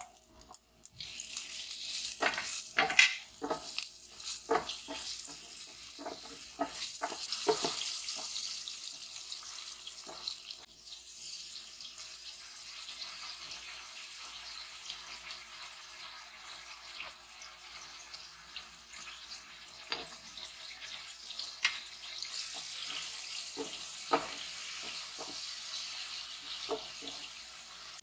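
Kitchen work: a steady hiss that starts about a second in and grows louder again near the end, with scattered knocks and clatters over it.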